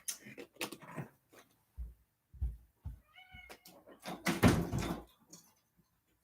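Domestic cat giving one short meow about three seconds in, amid soft thumps and clicks. A louder rustling, handling noise follows a second later.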